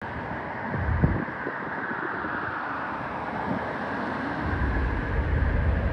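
Boeing 767-300ER airliner on final approach, its twin jet engines heard as a steady, distant roar. Wind buffets the microphone about a second in and again near the end.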